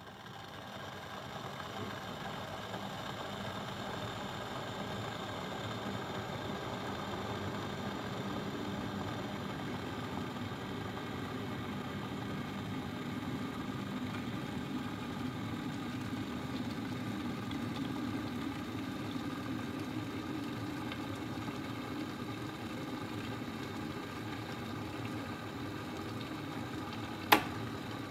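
Electric kettle heating water: a steady rumbling hiss that builds over the first few seconds and then holds. One sharp click comes about a second before the end.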